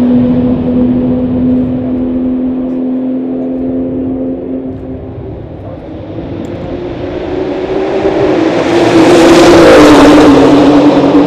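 Race car engines running on the track: one car's note fades away, then another comes closer with its engine note rising. It is loudest about nine to ten seconds in, where the pitch drops as it goes by.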